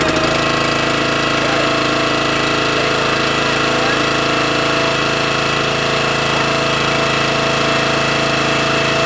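Subaru EX17 6-horsepower single-cylinder air-cooled engine on a hydraulic log splitter running steadily at working speed, just after being pull-started.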